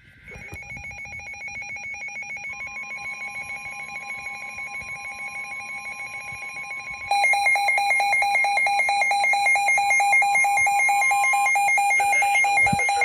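Weather radio receiver's emergency alarm sounding as a rapid, even electronic beeping, growing much louder about seven seconds in, with the NOAA Weather Radio steady warning tone held underneath for about nine seconds: the alert that a severe weather warning is about to be read.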